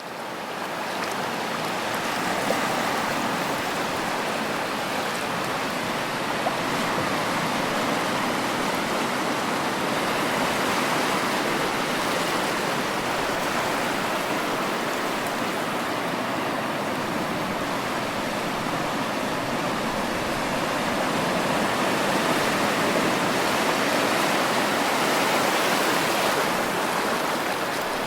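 Ocean waves washing in a continuous rushing wash that swells and eases slowly, louder around the middle and again near the end.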